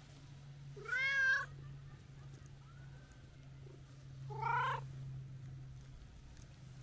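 Brown tabby-and-white cat meowing twice, short calls about three and a half seconds apart.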